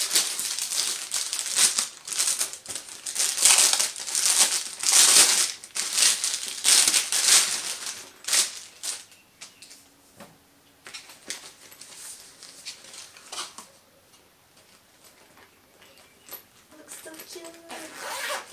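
Plastic packaging crinkling and crackling as it is handled and pulled off, loud for the first eight seconds or so. After that come fainter rustles and light knocks of boxes being moved.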